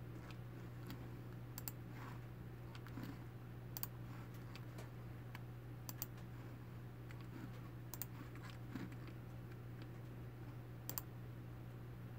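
Faint sharp taps on a phone's touchscreen, one every second or two, over a steady low hum.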